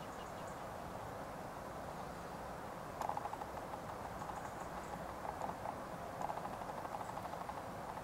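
Finches pecking seed on the ground: quick runs of light tapping start about three seconds in and recur several times, over a steady hiss.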